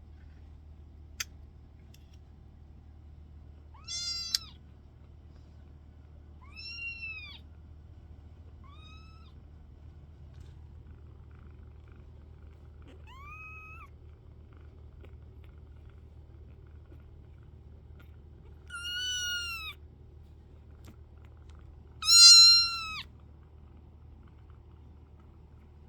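Young kittens meowing: six short, high, arching mews spread out with gaps between them, the last two the loudest. A sharp click about a second in.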